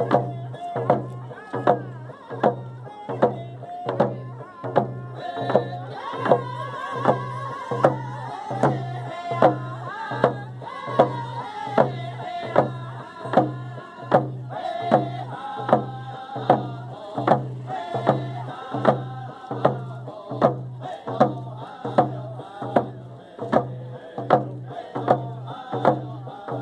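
Native American drum song: a drum beaten in a steady, slow beat, a little over one stroke a second, with voices singing over it.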